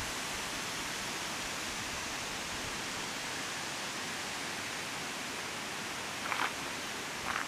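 Steady, even outdoor hiss with two short rustles near the end, about a second apart.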